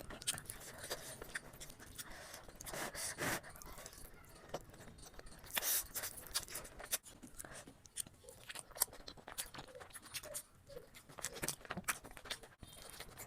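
Close-miked eating of biryani: chewing and small mouth clicks, with a few louder scraping, crunching sounds about three and six seconds in.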